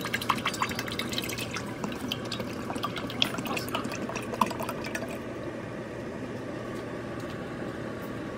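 Vegetable oil pouring in a steady stream from a 3-litre plastic jug into a large cast-aluminium Dutch pot, splashing into the oil already pooled in the pot. The splashing patter eases after about five seconds, leaving a softer, steady pouring.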